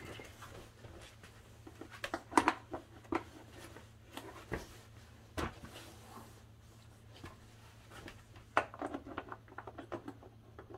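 Scattered light clicks and knocks of hands working plastic parts and a wiring connector inside a car door, over a faint low steady hum.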